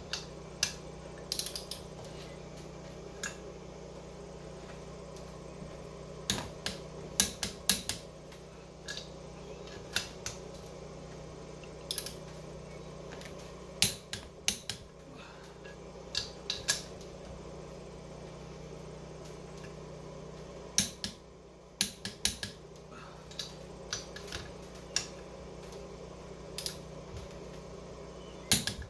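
Scattered sharp metallic clicks and clinks of a wrench and socket on the engine as bolts are torqued to 29 foot-pounds, heard singly or in quick twos and threes over a steady low hum.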